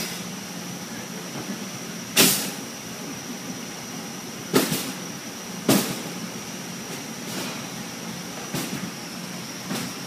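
Commercial conveyor dishwasher running with a steady hum and a constant high whine, broken by about six loud sudden clunks at uneven intervals of one to two seconds, the loudest about two seconds in.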